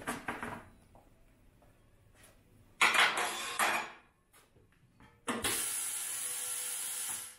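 Tyre changer's pneumatic system hissing steadily for about two seconds and cutting off sharply near the end, as the turntable clamps let go of the wheel. Before that there is a shorter, louder rush of noise about three seconds in and a light clatter at the start.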